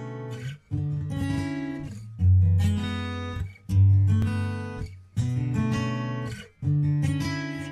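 Background music: acoustic guitar strumming chords, a new chord struck about every second and a half, each held and then cut off short before the next.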